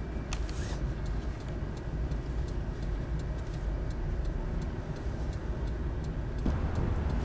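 A car's turn-signal indicator ticking steadily, a little over two ticks a second, over a low engine and road rumble that grows louder near the end.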